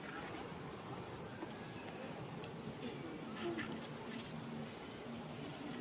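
Outdoor insect ambience: a steady high insect whine, with a short rising chirp repeated about once a second. A faint low buzz comes in over the second half.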